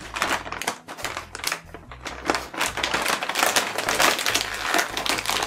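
A stiff potato-chip bag crinkling and crackling in irregular bursts as hands twist and pull at its top, trying to get it open.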